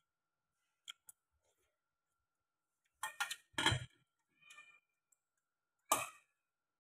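Metal spoon and chopsticks clinking and scraping against a stainless steel pot: two light ticks about a second in, a cluster of clatters about three seconds in, and one sharp clink near the end.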